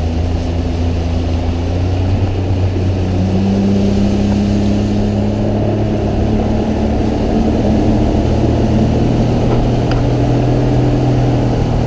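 An engine running steadily close by, its pitch stepping up a little about three seconds in and then holding.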